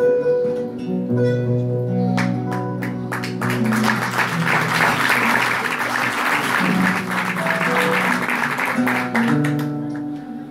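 Live instrumental introduction on mandole and acoustic guitar, with long held notes. Audience applause rises a few seconds in and fades away near the end.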